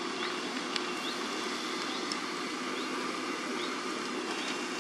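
Steady drone of fire engines running their pumps to feed the hoses, under a constant rushing noise, with a few sharp pops from the burning static caravan and some short high chirps.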